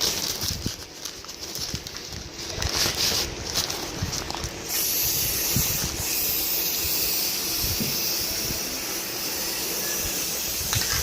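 Aerosol spray hissing as a coating is sprayed onto a sewing machine: short broken sprays for the first few seconds, then one long continuous spray from about five seconds in.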